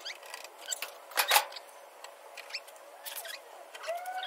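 Hand tools at work fitting screws into a thin plastic tail-light filler panel: small clicks and short squeaks as the screws are turned in, with one louder knock a little over a second in.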